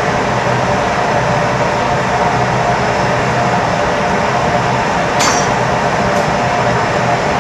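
Steady rushing noise of gas burners in a glassblowing hot shop, with a hand torch playing on the glass. A single sharp clink of glass or a metal tool comes about five seconds in.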